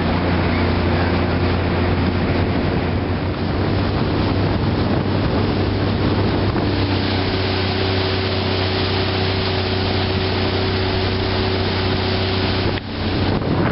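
Outboard motor on a small boat running steadily under way, with a low, even hum, water rushing past the hull and wind buffeting the microphone. The sound dips sharply for a moment about a second before the end.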